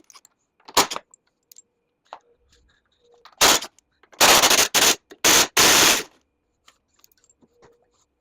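Power impact wrench rattling in short bursts as it spins out the bolts holding the golf cart's canopy: one brief burst near the start, another about three and a half seconds in, then four quick bursts close together.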